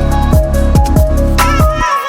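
Background electronic music with a steady beat of deep kicks that drop in pitch, about two and a half a second, and a brief dropout near the end.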